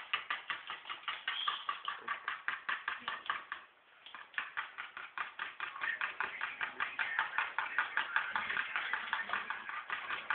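Rapid, even tapping, about five strokes a second, with a short break about four seconds in.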